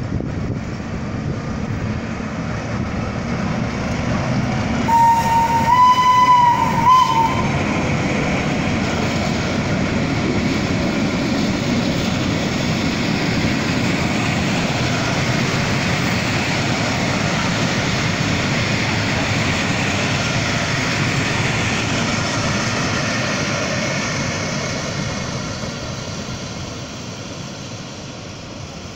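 Rhaetian Railway Ge 6/6 I 'Crocodile' electric locomotive passing with a freight train. About five seconds in it gives one horn blast of about two seconds. Then comes the steady running noise of the freight wagons rolling by, fading away near the end.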